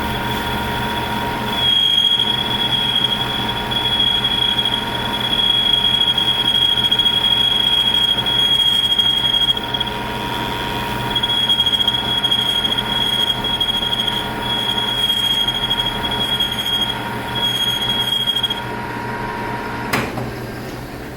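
Lathe turning the clutch engagement face of a BMW E39 air-conditioning compressor: a steady machine whine with a high, sustained squeal from the cutting tool on the metal. The squeal comes and goes in stretches, stops a little before the end, and is followed by a sharp click.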